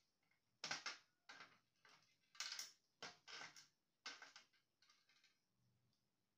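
Series of short clicks and scrapes from handling the plastic and metal parts of a laser printer being taken apart, about six in a few seconds.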